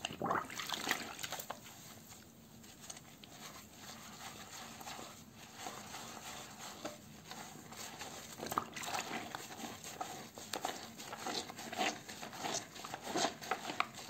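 A soaked bar of Natural Source black currant soap being rubbed against a wet sponge in a basin of soapy water: wet rubbing and lathering sounds in irregular strokes, busier in the second half.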